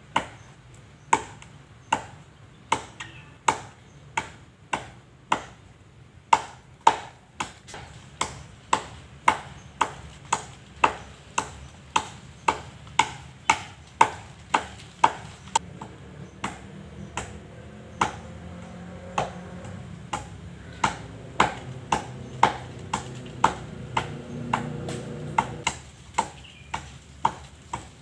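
Steady chopping strokes of a hand blade cutting into the top of a coconut palm trunk, about three sharp cracks every two seconds, each with a short ring. A faint low drone swells underneath between about 16 and 26 seconds.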